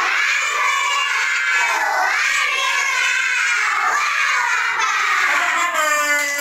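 A class of young children singing loudly together, their many high voices holding and sliding between notes, in an action song led by hand gestures.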